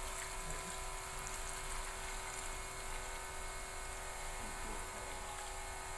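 Coconut milk poured from a bowl into a wok of raw vegetables, a soft steady trickle and splash, over a constant electrical hum.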